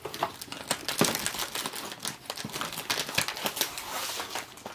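Plastic packaging crinkling and rustling in irregular bursts of crackle as boxed toy parts are handled and unpacked.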